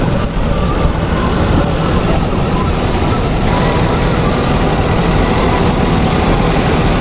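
Rice combine harvester running steadily while its unloading pipe empties the full grain tank of paddy into a tractor trailer: a loud, even machine noise over a low engine drone.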